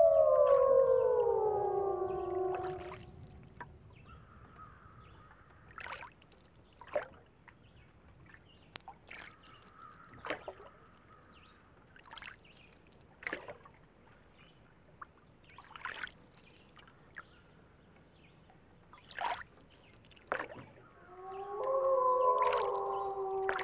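A pack of gray wolves howling in chorus, several voices at different pitches gliding downward and fading out within about three seconds. Then comes a quieter stretch with scattered short sharp sounds and a faint held howl, and near the end the chorus rises again with several overlapping howls.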